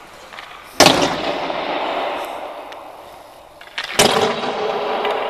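Two hard hockey shots, about three seconds apart, each a sharp bang followed by a long echo through the ice rink; a faint ringing tone hangs after the second.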